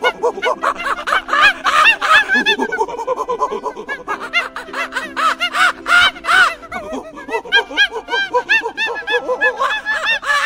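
A rapid, chattering run of short, high calls, many overlapping, over a steady background music bed.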